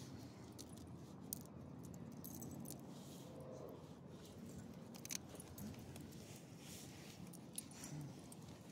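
Light metallic jingling of a small dog's collar tag and leash clip, with a few sharper clinks scattered through.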